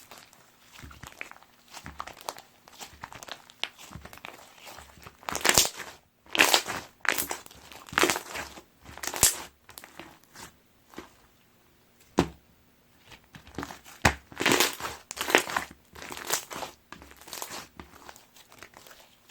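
Soda jelly slime being squeezed and stretched by hand, giving irregular bursts of crackling, popping squishes with a few sharp pops.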